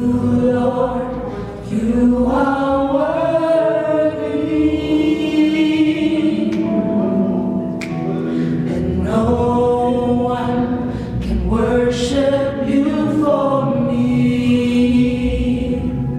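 Gospel choir singing long held notes in harmony, with a few sharp percussive hits. It is typical of a worship group's sound check.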